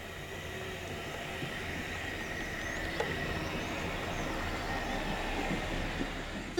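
Steady vehicle running noise, a low hum under an even noisy bed, fading in slowly and growing a little louder, with faint bird chirps high above it.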